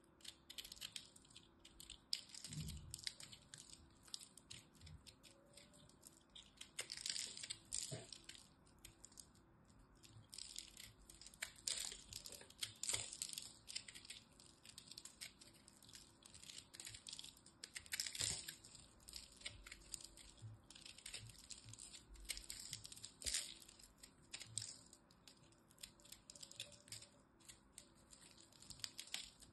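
Utility-knife blade scraping and carving into a ball of compressed, crushed soap, making dense, irregular crackly crunching as crumbs break off, with a few sharper snaps. Near the end, fingers crumble the ball.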